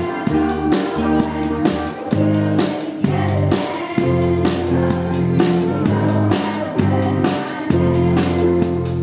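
A live band playing a song on drum kit, electric guitar, bass and keyboard, with a steady drum beat.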